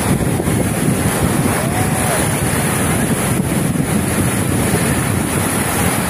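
Rough storm surf breaking and washing on the shore of the Black Sea, with wind buffeting the microphone in a steady rush.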